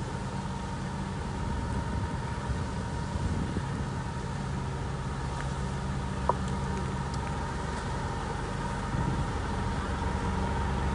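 Parked coach bus's engine idling steadily, with one short sharp click about six seconds in.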